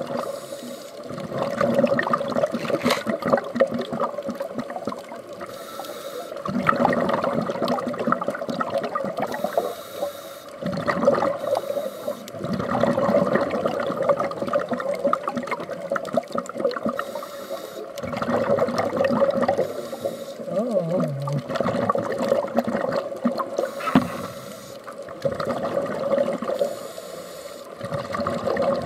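Scuba divers breathing through regulators underwater: a burst of exhaled bubbles lasting a few seconds comes about every five to six seconds, with quieter spells of inhaling between.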